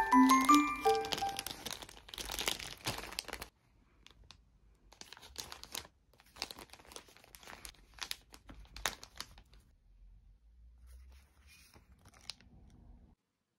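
Plastic packaging of a bag of disposable 3D face masks crinkling and rustling in irregular bursts as it is opened and handled. A glockenspiel tune dies away in the first second.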